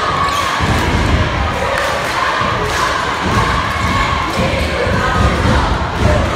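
A basketball being dribbled on a gym floor, thumping repeatedly at an uneven pace, over steady crowd noise in the gym.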